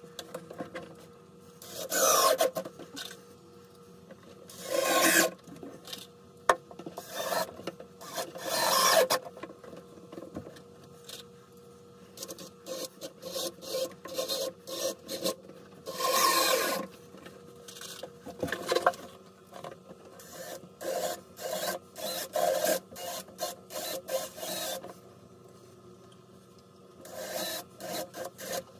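Cordless drill driving screws through an 18-inch subwoofer's mounting ring into the wooden baffle, in bursts of about a second, with short clicks and knocks of handling between and a quicker run of them in the second half.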